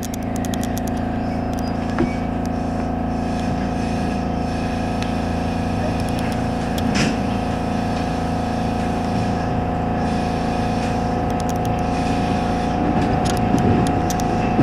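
JR West 207 series electric commuter train running, heard from just behind the driver's cab: a steady electric motor hum over wheel and rail noise. There is a sharp click about two seconds in and a few rail clicks near the end.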